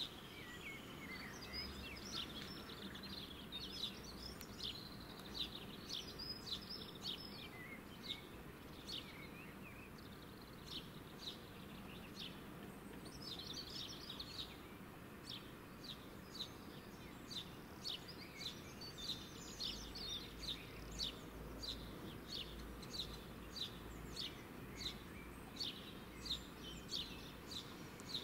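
Small birds chirping: short high chirps repeated about one or two a second, with bursts of busier twittering between them, over a faint steady background hiss.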